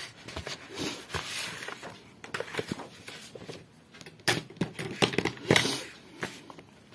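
Handling sounds: a sheet of paper rustling and sliding on a desk, with scattered sharp taps and clicks, the loudest about four and five and a half seconds in.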